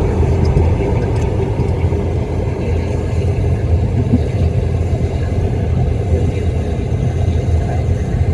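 Steady low rumble of a diesel car's engine and tyres, heard from inside the cabin while driving.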